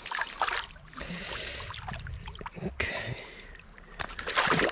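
Water splashing and sloshing in irregular bursts as a hooked rainbow trout thrashes in a landing net at the surface. The loudest splashes come near the end.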